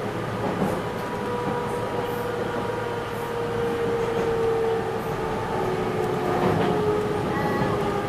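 Enshu Railway 2000-series electric train running along elevated track, heard from inside the driver's cab: steady running noise with a whine that drifts slightly in pitch.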